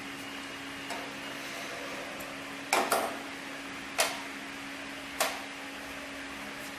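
Steady machine hum from an industrial programmable pattern sewing machine standing idle, with a few sharp clacks: one faint about a second in, a quick double near three seconds, then single ones near four and five seconds. There is no run of stitching.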